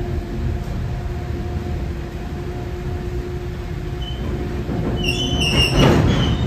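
Empty grain hopper wagons rolling past: a steady rumble and clatter of wheels on rail, swelling louder near the end.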